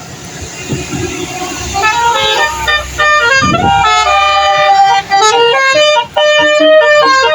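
Multi-tone telolet horn playing a quick melody of stepped notes, starting about two seconds in and growing loud, over a low vehicle rumble in the first few seconds.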